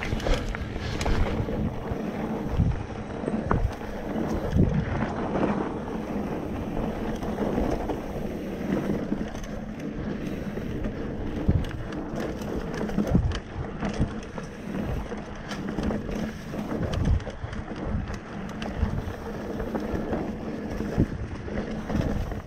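Mountain bike rolling over a rough dirt trail: tyres on dirt, with frequent knocks and rattles as the bike hits roots and bumps, and wind buffeting the microphone.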